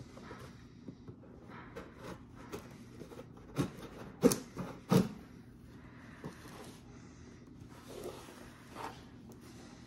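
Cardboard shipping box being opened with a folding knife on a wooden table: soft scrapes and rustles of the knife on packing tape and cardboard, with a quick run of four sharp knocks about four to five seconds in, and the box being scraped around near the end.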